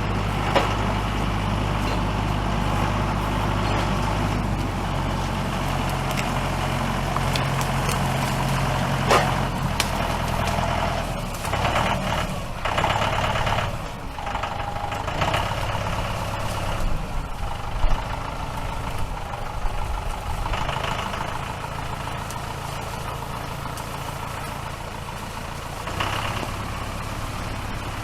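A heavy engine running steadily, its speed shifting several times, with a few sharp knocks along the way.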